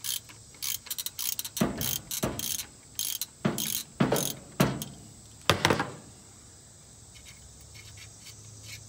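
Ratcheting wrench clicking in quick runs as the alternator tensioner bolt is worked loose by hand. The clicking stops about six seconds in.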